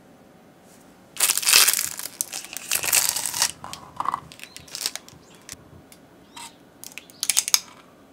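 Thin plastic wrapper crinkling and tearing for about two seconds as a wide tapioca drink straw is unwrapped, followed by a few light clicks and taps.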